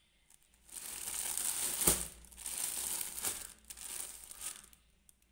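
Plastic packaging film crinkling as hands handle a door mat wrapped in it. It comes in three stretches, with a sharp crack about two seconds in.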